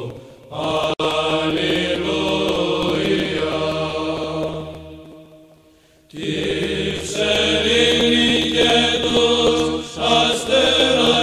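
Chanting as background music: sustained voices holding long notes. It fades out about five seconds in and starts again a second or so later.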